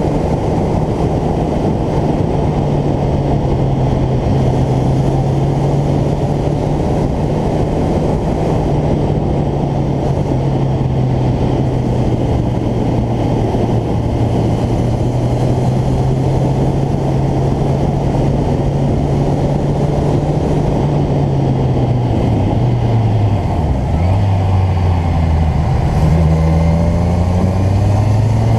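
Motorcycle engine running at a steady cruise under a heavy rush of wind noise. About 22 seconds in the engine note drops as the bike slows, then rises again as it accelerates in the last few seconds.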